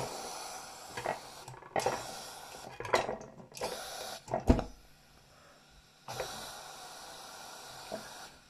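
Tilley X-246-B paraffin pressure lantern's burner hissing in spells that stop and start as the control valve at its base is worked, with metal clicks and one loud knock about halfway through.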